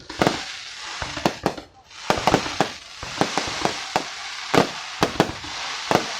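Fireworks display: sharp bangs of bursting shells, roughly one or two a second, over a continuous crackling hiss.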